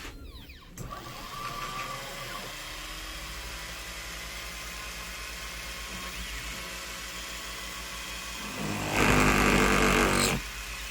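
Unimat miniature machine converted to CNC, running a G-code program: the stepper motors whine steadily, with sweeping pitch in the first two seconds as the axes move. About nine seconds in, a much louder rush lasts about a second and a half as the tool plunges a millimetre into the workpiece.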